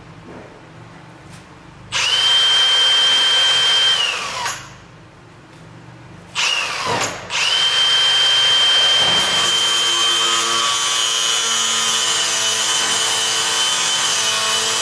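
Milwaukee cordless power tool running in bursts: its motor whines at a steady pitch for about two seconds and winds down, gives a short blip, then runs for about eight seconds and winds down near the end.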